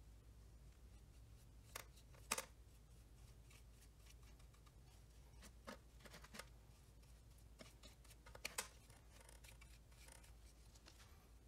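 Faint, scattered light scrapes and taps from a paintbrush dipped in a paper cup of epoxy resin and brushed onto a carbon fibre part, a few isolated strokes over quiet room tone with a low steady hum.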